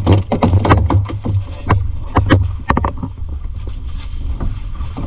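A boat's engine running with a steady low rumble, while sharp slaps or knocks come in quick succession through the first three seconds and again near the end, typical of water slapping against the hull.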